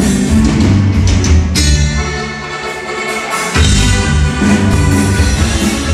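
Norteño band playing live: accordion over electric bass, guitar and drum kit. The bass drops out for about two seconds midway, then the full band comes back in.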